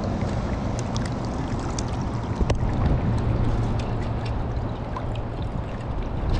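River water rushing and gurgling steadily around a landing net at the water's edge, with a few light clicks of handling, the clearest about two and a half seconds in.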